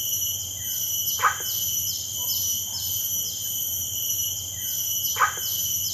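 Two short barking calls from an unseen animal, about four seconds apart, each dropping quickly in pitch, over a steady, pulsing chorus of insects. The listeners wonder whether it is an otter barking.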